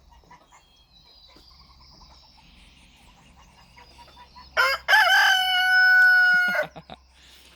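Rooster crowing once: a loud call about two seconds long, starting a little after four and a half seconds in, rising at first and then held steady, and breaking off in a few short notes.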